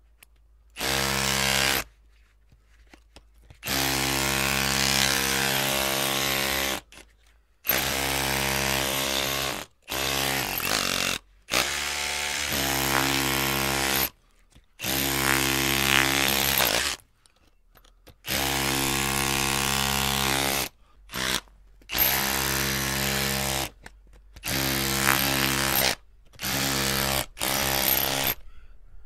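Electric drill motor run in about a dozen short bursts, switched on and off, each a steady whine lasting one to three seconds with brief silences between.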